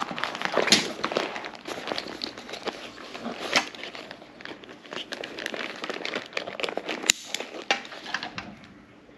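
Nylon ripstop dry bag crinkling and rustling as its top is rolled down and folded shut by hand, with many sharp clicks and crackles among it, the sharpest about seven seconds in. It dies away near the end.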